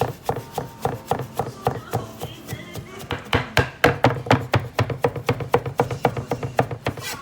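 Fast, even knocking of a kitchen utensil, about five strikes a second and harder for a stretch past the middle, as the seasoning mix of five-spice powder and fermented red bean curd is beaten and crushed.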